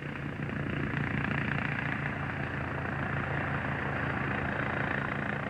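Westland Scout turbine-powered light helicopter in flight: steady rotor and turbine noise with a low hum, growing a little louder over the first second, then holding steady.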